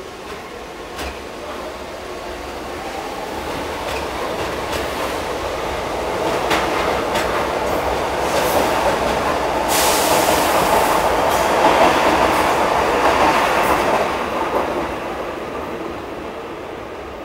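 São Paulo Metro train passing close by on an elevated track. Its rush builds over several seconds, with scattered clicks from the wheels. It is loudest from about ten to fourteen seconds in, then fades as the train moves off.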